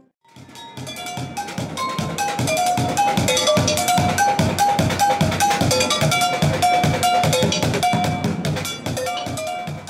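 Street drummer playing rapid rhythms on an improvised kit of upturned buckets, plastic containers, pots and pans: low thuds from the plastic drums under ringing, pitched metallic strikes from the pots.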